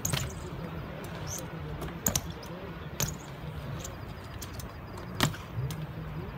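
BMX bike tyres rolling on a concrete skatepark bowl with a steady low rumble, broken by a few sharp clacks of the bike landing and knocking on the concrete and coping: near the start, twice around two to three seconds in, and again about five seconds in.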